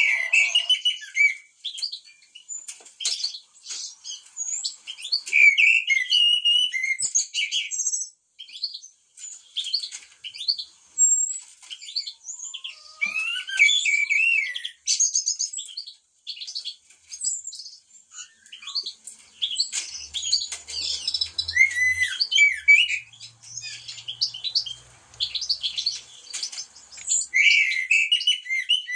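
Blackbirds and other songbirds singing together: a busy run of overlapping chirps and short whistled phrases with hardly a pause.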